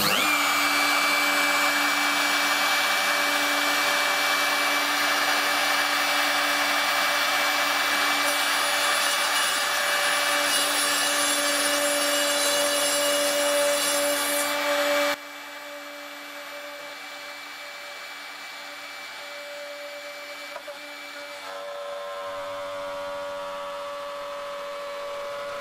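Makita RT0700C trim router running at full speed with a steady high whine, its 13 mm straight bit cutting a through-slot in an MDF jig plate. About fifteen seconds in, the sound drops abruptly to a quieter steady running.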